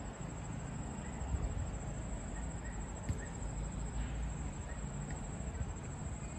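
Steady outdoor ambience at an empty open-air station: a low rumble, a thin continuous high trill, faint chirps and a couple of small clicks, with no train sound standing out.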